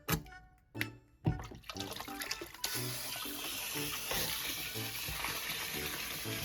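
Background music, with a few sharp knocks near the start, then a steady rushing noise that starts abruptly about two and a half seconds in and keeps going.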